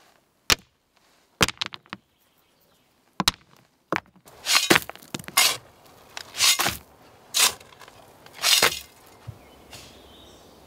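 Stones knocking against each other as they are packed around the base of a wooden post in a hole, a few sharp clicks. From about four seconds in, about six short rushing scrapes as sand is poured into the hole around the post.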